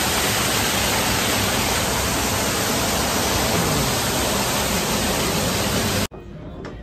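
Artificial indoor waterfall splashing into its rock pool close by, a loud steady rush of water; it cuts off suddenly about six seconds in.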